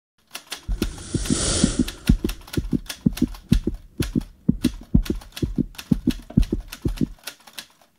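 Animated-logo sound effects: a hissing whoosh about a second in, over a fast run of sharp clicks with low thuds, several a second, that stops about seven seconds in.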